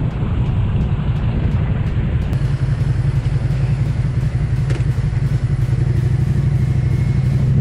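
Motorcycle engine running with a steady low note while riding slowly in city traffic, mixed with road and wind noise. There is a short sharp knock about five seconds in.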